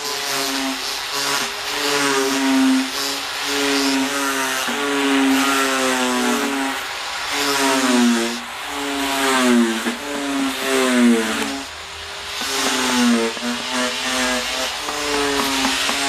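A power tool's motor running hard while carving wood. Its pitch sags under load and rises again, over and over.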